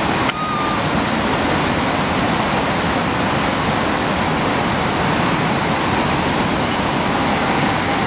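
Steady rushing of a mountain river pouring over and between smooth rock slabs in small waterfalls and cascades.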